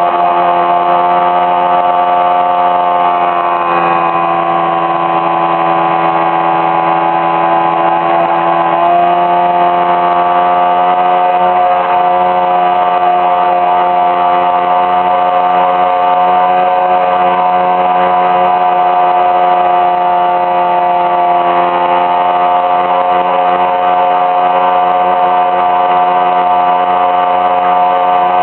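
Riva boat's motor running steadily at constant speed, heard from on board, with a slight shift in pitch about 4 seconds in and again about 9 seconds in.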